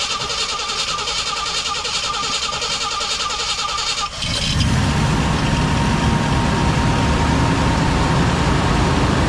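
Pickup truck engine running at idle just after a jump start from a portable jump box, its battery having been completely dead. About four seconds in, the sound turns deeper and heavier.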